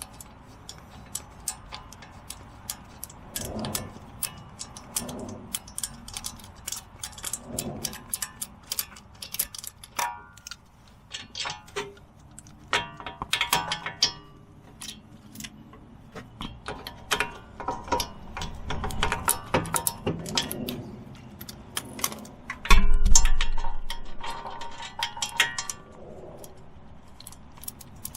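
Hand tools working on the car's front wheel hub: irregular metallic clicks, ticks and clinks throughout, with one heavy thump about 23 seconds in.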